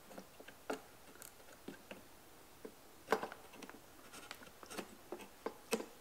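Faint, scattered clicks and light taps of a RAM stick being lined up and fitted into a motherboard's memory slot, with a few sharper clicks about three seconds in and near the end.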